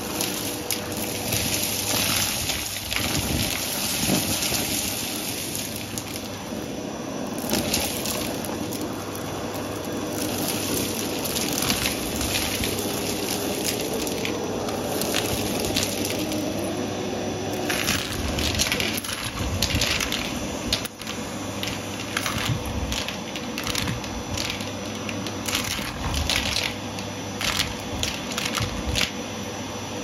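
Vacuum cleaner running steadily with its hose nozzle sucking up a pile of mixed confetti, glitter, paper scraps and coins from carpet, with frequent crackling and clattering as pieces rattle up the hose, busier in the second half.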